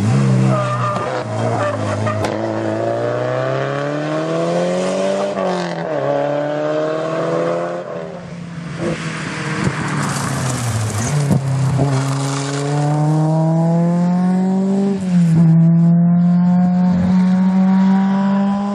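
Rally car engines at full throttle as they pass, the pitch climbing through the gears: first a Lancia Delta Integrale's turbocharged four-cylinder, then an Opel Manta 400's four-cylinder. There is a noisy rush near the middle, and an upshift about fifteen seconds in.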